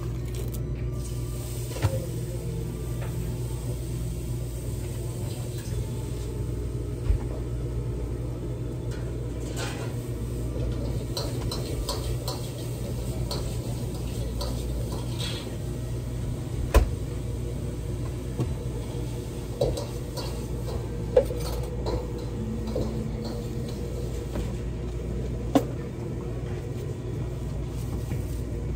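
A kitchen knife trimming tuna loin on a cutting board: about half a dozen short sharp knocks of the blade and handling against the board, over a steady low hum.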